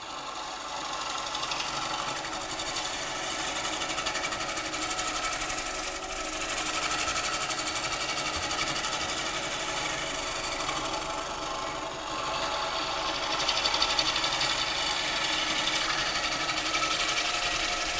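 Bowl gouge taking a rough cut on the outside of a large dry-wood bowl blank spinning on a Coronet Herald lathe. It makes a steady, fast, fluttering rasp as it peels off shavings.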